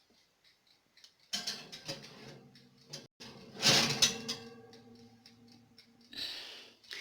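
A loaf tin knocking and clattering against the rack as it goes into a countertop microwave-convection oven, the loudest clatter about halfway through, over the oven's steady hum that starts about a second in and stops near the end.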